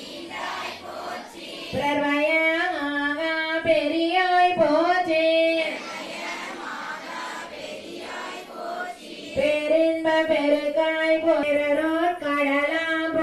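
A high voice sings a devotional melody at a temple lamp pooja in two phrases, the first about two seconds in and the second from about nine seconds. A quieter stretch lies between them.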